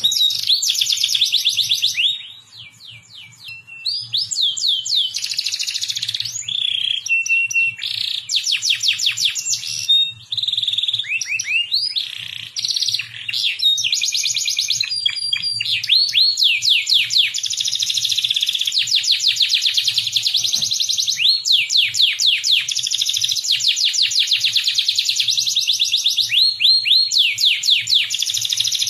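Domestic canary singing a long, continuous song of fast trills and rows of rising whistled notes, with a brief quieter stretch about two seconds in. It is a tutor song of the kind played to young canaries to teach them to sing. A faint low hum sits under it.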